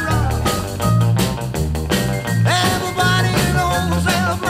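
Background rock and roll music with a steady beat.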